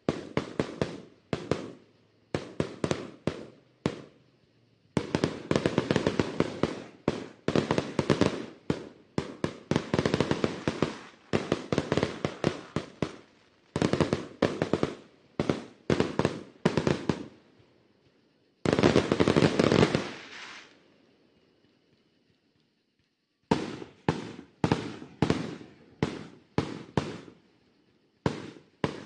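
Fireworks display: rapid strings of sharp bangs and pops from bursting shells, with a very dense flurry about two-thirds of the way through, then a few seconds of quiet before the bangs start again.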